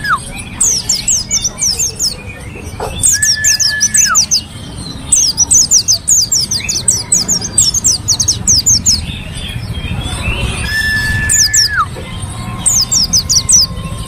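Caged white-eye (pleci) singing in fast bursts of high, quick, down-slurred chirps. Now and then a long, steady whistle sounds, dropping in pitch at its end.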